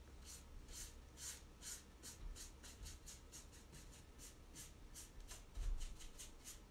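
Faint, repeated swishes of a wet paintbrush stroking chalk paint across a door panel, about two to three strokes a second.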